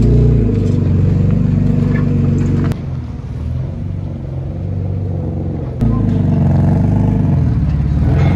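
A car engine running, its pitch rising and falling, dropping abruptly quieter for about three seconds in the middle before it comes back at the same level.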